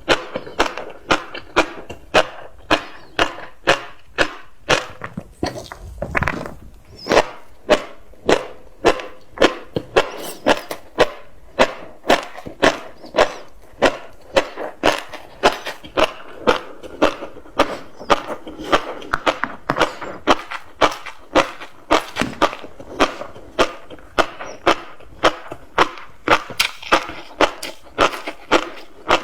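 Close-miked chewing of tobiko (flying fish roe), the eggs crunching and popping in the mouth in a steady rhythm of about two bites a second.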